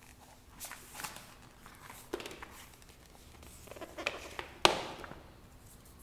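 Handling sounds from unboxing an Apple Magic Keyboard: the keyboard and its cardboard packaging are rustled, tapped and set down in a string of short clicks and scrapes, with one sharp knock about four and a half seconds in as something is put down on the table.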